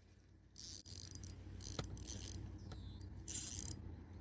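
Fishing reel's drag slipping in about four short, high-pitched zinging bursts as a hooked fish runs and pulls line off the spool.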